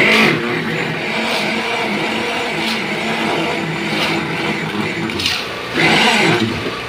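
A small engine or motor running steadily at a slightly wavering pitch. A swishing, scraping surge comes about every second and a half, the strongest right at the start and about six seconds in.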